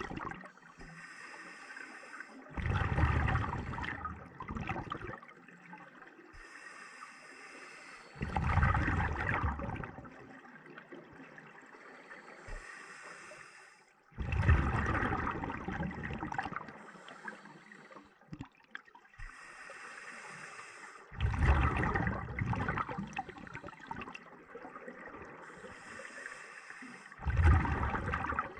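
Scuba diver breathing through a regulator underwater, about once every six seconds. Each breath is a brief hiss on the inhale, followed by a louder two-to-three-second rush of exhaled bubbles. Five exhalations are heard.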